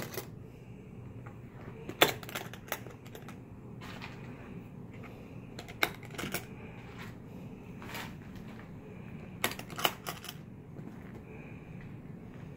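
Latches of a hardshell guitar case being flipped open by hand: several sharp clicks a second or more apart, with two or three close together near the end, amid quieter handling of the case.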